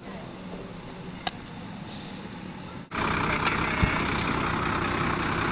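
Fire engine running steadily, with a sharp click about a second in. About three seconds in the sound jumps to a louder, closer and steadier engine noise.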